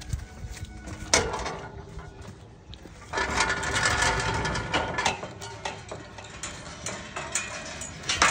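Metal pen gate clanking and rattling as it is handled: one sharp ringing clank about a second in, then a longer metallic rattling and scraping about three to five seconds in, with scattered knocks.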